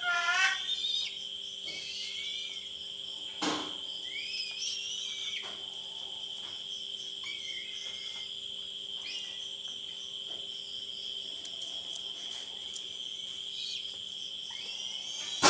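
A steady, high-pitched insect drone, like crickets, with scattered short chirping calls over it. There is a sharp knock about three and a half seconds in and another near the end.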